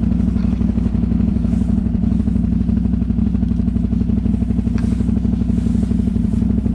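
ATV engine running steadily at an even, unchanging pitch.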